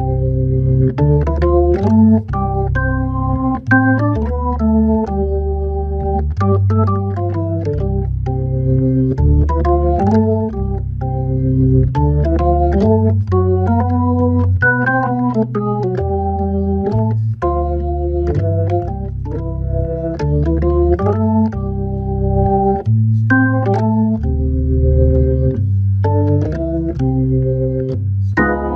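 Hammond B3 tonewheel organ played solo in a jazz waltz: a melody line and held chords over bass notes that change beat by beat, playing without a break.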